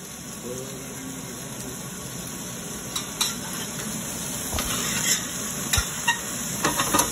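Chicken and broccoli sizzling in a stainless steel sauté pan on a gas burner, with a spoon stirring and scraping in the pan; the clinks of the spoon start about three seconds in and come more often toward the end.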